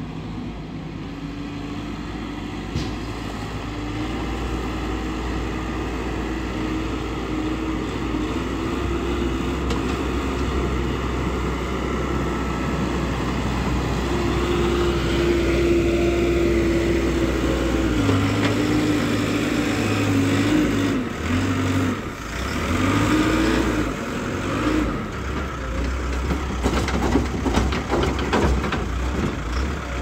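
Cat 424 backhoe loader's diesel engine running under load as the machine drives with a full front bucket, growing louder as it comes close. In the second half the engine note rises and dips several times as the revs are varied in a test run, and a run of clattering knocks comes near the end.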